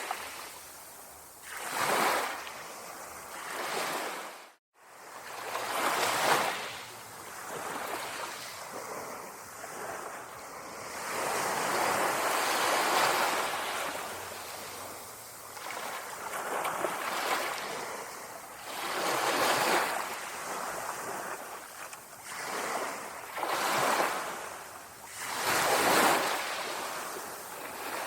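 Small sea waves lapping on a shore, each wash swelling and fading every few seconds. The sound cuts out completely for a moment about four and a half seconds in.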